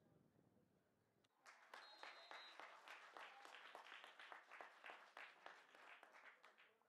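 A small group of people clapping, starting about a second and a half in and continuing steadily until just before the end.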